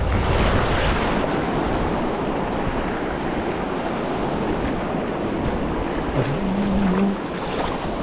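Ocean surf washing on the shore, with wind rumbling on the microphone, heaviest in the first second.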